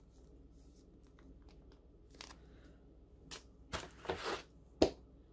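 Quiet handling of plastic packaging: a few short crinkles and taps, a brief rustle about four seconds in, and a sharp click near the end.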